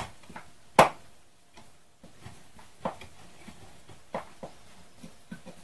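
Scattered sharp metallic clicks and knocks as a hand tool and steel rods or bolts are worked against the frame at the bottom of a stacked battery pack. The loudest knock comes about a second in, with a few lighter ones later.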